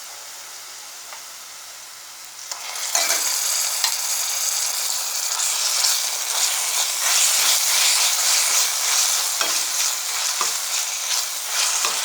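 Sliced onions frying in hot oil in a kadai, a gentle sizzle that jumps to loud sizzling about two and a half seconds in as ginger garlic paste goes into the oil. A spoon knocks and scrapes as the mixture is stirred.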